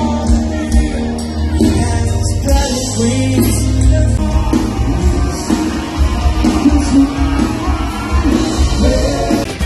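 Live band music with piano, drums and bass guitar, played continuously.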